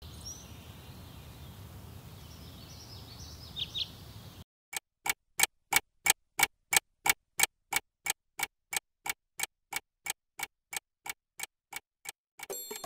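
A desk clock ticking sharply and evenly, about three ticks a second, with silence between the ticks. It is preceded by a few seconds of faint outdoor ambience with a few brief bird chirps.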